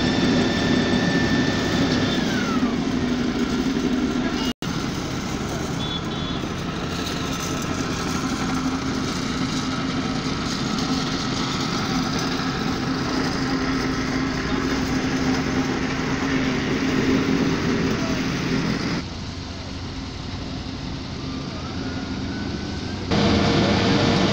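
Heavy diesel road-construction machinery engines running steadily. One engine note falls in pitch about two seconds in. The sound cuts out for an instant, and there is a quieter stretch near the end.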